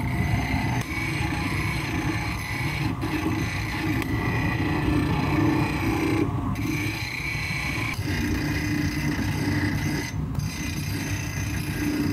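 Hand finishing of cast aluminium pieces: continuous rasping and scraping of tools on the metal, over a steady workshop hum. The noise drops out briefly three times, every three to four seconds.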